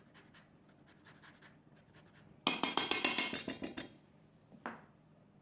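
Lemon rind grated on a metal rasp grater: faint scratching, then a loud quick run of rasping strokes a little past halfway, and one short light knock near the end.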